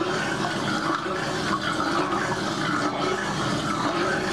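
1949 Maytag AMP automatic washer washing a load of towels: water sloshing and churning steadily in the filled tub.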